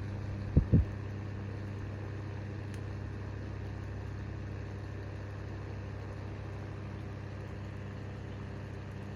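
Soviet Sputnik electric fan running, its motor giving a steady mains hum under the whir of the blades. Two sharp knocks come close together just after the start.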